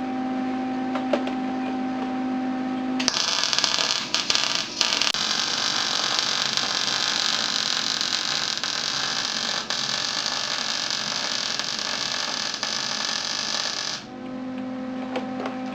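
Wire-feed (MIG) welding arc crackling and frying steadily for about eleven seconds as a weld bead is run, starting about three seconds in and cutting off abruptly near the end. A steady machine hum is heard before the arc strikes and again after it stops.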